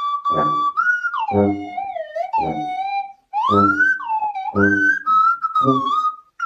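Background music: a high, gliding whistle-like lead melody over a low beat that pulses about once a second.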